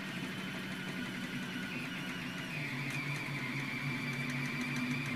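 Anycubic Kossel delta 3D printer printing, its stepper motors singing in steady tones that shift pitch as the print head changes direction. A fast ticking joins about three seconds in.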